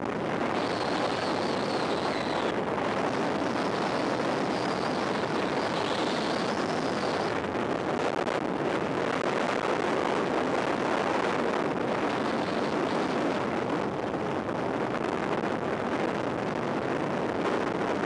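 Wind rushing over a sunglasses camera's microphone, with bicycle tyres rolling on asphalt, as a mountain bike descends a paved road at speed: a steady noise, with a faint high whine over the first seven seconds or so.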